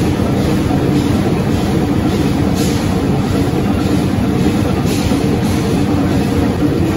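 Large stationary engine running steadily: a heavy continuous mechanical drone, with a brief faint hiss a couple of times.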